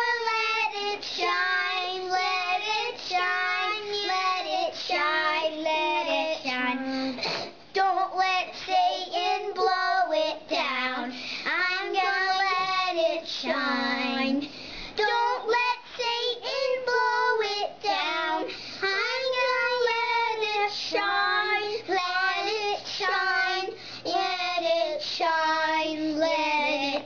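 Two young children, a boy and a girl, singing a song together in high child voices.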